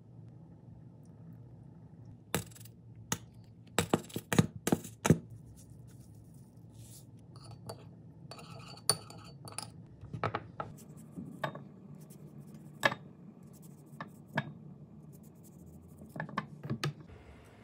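Sharp clinks and taps of utensils on small dishes: a metal spoon stirring sauce in a small ceramic bowl, in a quick run of clinks and then single taps. Near the end comes another short run of taps as a knife cuts cucumber cubes that drop into a small glass bowl.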